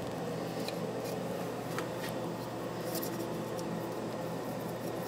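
Faint brushing and scraping of a small brush spreading anti-seize compound on a steel steering knuckle and axle splines, with a few light ticks, over a steady low shop hum.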